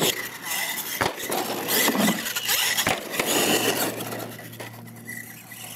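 Radio-controlled monster truck running over ramps on a dirt track: sharp knocks right at the start, about a second in and near three seconds, with its tyres scraping and skidding through loose dirt in between.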